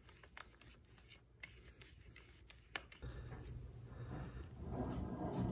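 Quiet handling noise: a few faint clicks, then from about three seconds in a rustle and scrape that builds, as gloved hands work a lawn tractor's front steering spindle and grease fitting.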